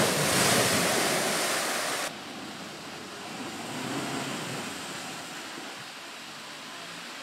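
Land Rover Defender ploughing through a muddy water-filled track: a loud rush of splashing spray, then after an abrupt cut a quieter wash of water around the wheels that swells about four seconds in.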